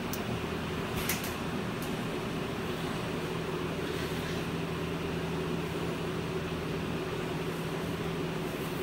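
Steady machine hum with a constant low tone. A light knock about a second in, with a fainter click shortly after, from handling the filter element.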